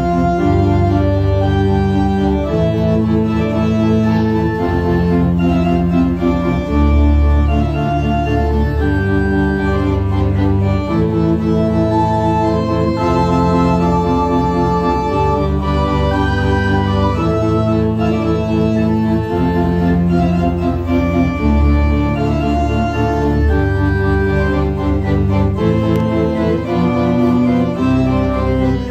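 Kimball theatre pipe organ playing a tune: loud, sustained chords over low bass notes that change every second or two.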